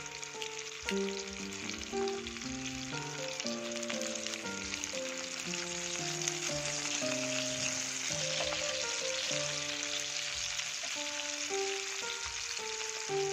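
Chicken cheese frankfurters sizzling steadily in hot oil in a non-stick frying pan.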